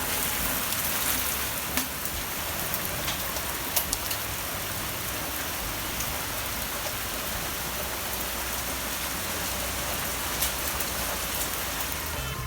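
Steady rain falling, with scattered louder drops striking a surface.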